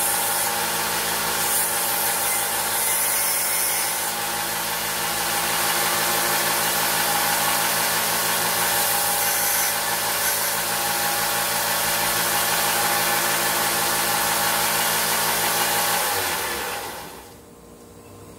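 Electric power tool grinding rust off a pocket-knife blade, its motor running steadily with a rushing noise. About sixteen seconds in it is switched off and spins down, leaving a faint hum.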